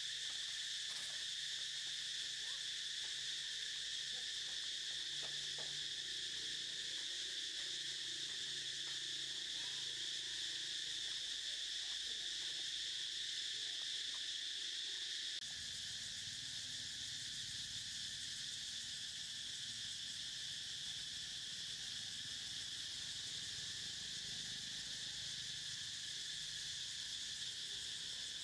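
Steady, continuous high-pitched drone of an insect chorus. About halfway through it steps slightly quieter at a cut, and a faint low rumble comes in underneath.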